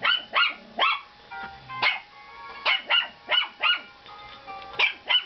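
Chihuahua puppies barking, about ten short, high-pitched yaps at an uneven pace.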